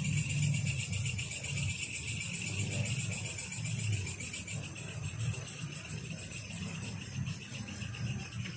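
Night insects, crickets, trilling steadily in two high-pitched bands, over a low, uneven rumble.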